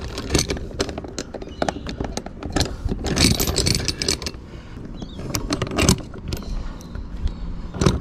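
Irregular metallic clinking, jangling and scraping of anchor chain and deck fittings being handled at the bow roller while the anchor is locked off, with busier clusters of clinks about three and six seconds in.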